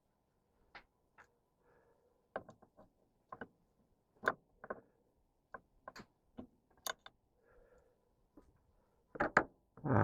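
Irregular sharp clicks and light knocks of hands and tools working loose a boat's dock light fixtures, with a louder pair of knocks near the end.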